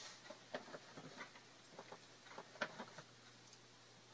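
Faint, scattered scraping and light taps of a spoon stirring a yeast, sugar and salt mixture in warm water in a bowl, over a faint steady low hum.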